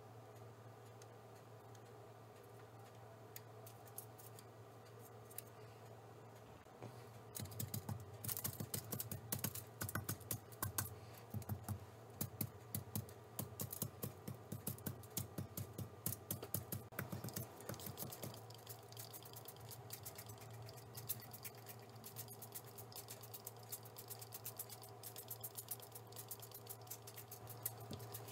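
Rapid light taps and clicks of gel food-colour bottle tips dabbing onto paper towels laid over aluminium foil. They start about a quarter of the way in, come thickest through the middle and grow softer toward the end, over a steady low hum.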